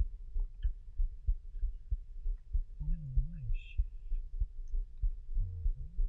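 Small waves lapping against a waterproof action-camera housing at the waterline: low, dull thumps, two or three a second.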